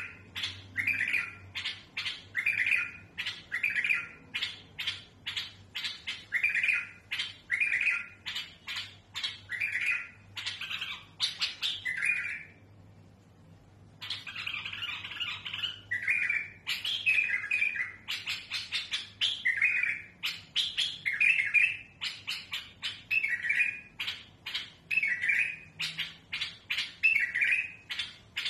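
Caged bulbul singing a harsh, rough song of short repeated phrases, about one a second, with a short break near the middle. It is kept as a tutor song for teaching young bulbuls.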